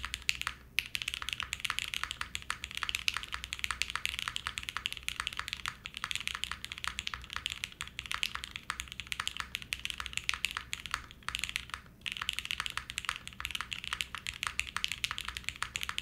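Mode Envoy 65% mechanical keyboard typed on quickly: lubed Gateron Pro Speed Silver linear switches on a carbon fiber plate with mid-plate foam and lattice mounts, under PBT keycaps. A steady, fast run of keystroke clacks, with brief pauses about a second in and near twelve seconds.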